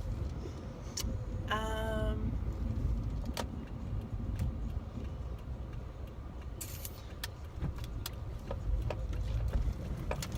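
Car cabin with the low steady rumble of the car running, scattered light clicks, and a short pitched tone lasting about half a second near the start.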